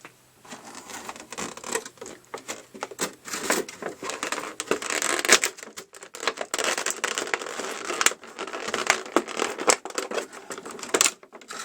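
An action figure's plastic packaging and box being handled and pulled open: irregular crinkling and scratching with many small clicks and snaps.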